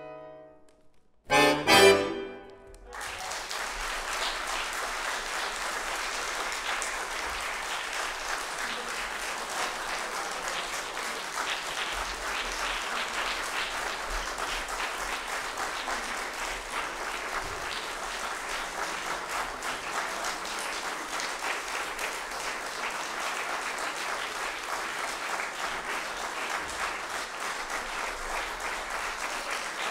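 A button accordion plays two short, loud closing chords about a second in. After them an audience applauds steadily.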